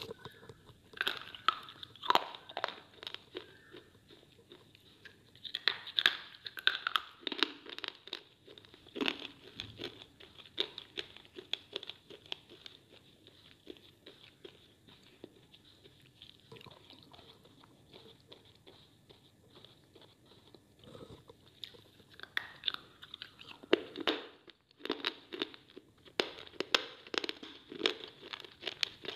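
A person biting and chewing pieces of dry, chalky slate (slate bars and shapes). It makes sharp, brittle crunches that come in bursts, with a quieter stretch of lighter chewing in the middle.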